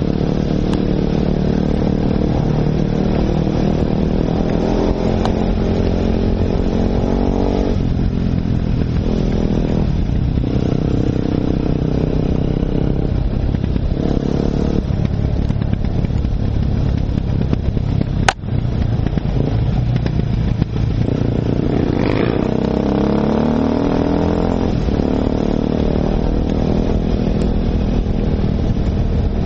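Enduro motorcycle engine under way, its pitch rising and falling as the rider works the throttle and shifts, with a couple of quick revving climbs a little past the middle. A single sharp knock cuts through about eighteen seconds in.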